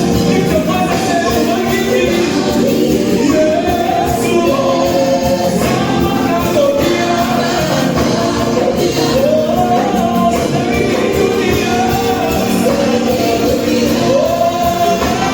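Gospel music with a choir singing over dense accompaniment.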